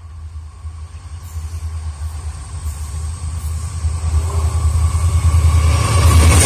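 Diesel locomotives hauling a freight train as it approaches: a low engine rumble that grows steadily louder, the locomotives drawing level near the end.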